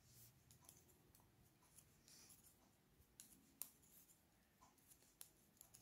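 Faint clicks and taps of knitting needles as a row is purled, over near-silent room tone.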